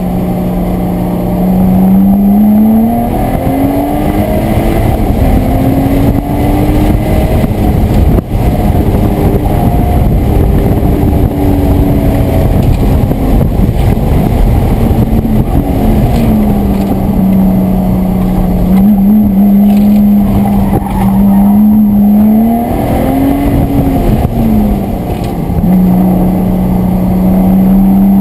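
Lotus Exige S V6's supercharged 3.5-litre V6, heard from inside the cabin while driven hard. The engine note climbs and drops repeatedly as it revs through the gears, then holds steady for several seconds at a time in the second half, over constant road and wind noise.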